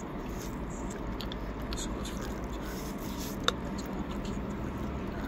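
A person slurping and chewing instant noodles, with small wet clicks and one sharp click about three and a half seconds in.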